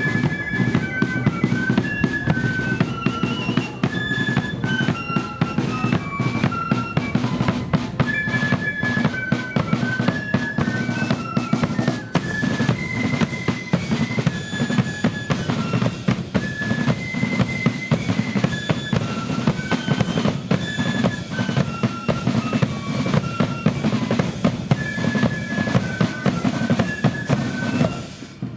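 A loyalist marching flute band playing a tune: flutes carry a high melody over a pounding bass drum and rapid snare drumming, with a brief drop in loudness near the end.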